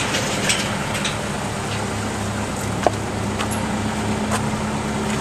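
Tow truck's engine idling steadily in the background, with a few light clicks, the sharpest about three seconds in.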